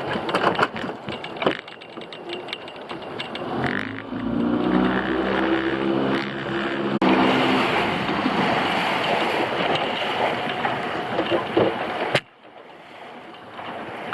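Small fishing boat at sea: its engine running steadily, with knocks and clicks from gear on deck.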